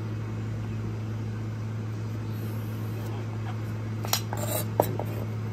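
A steady low hum underneath, with a few sharp knocks and taps about four seconds in as peeled celery stalks are gathered and cut on a plastic cutting board.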